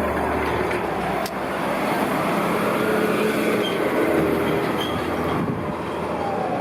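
Fire truck siren wailing in slow falling sweeps, fainter than the dense road traffic and engine noise around it.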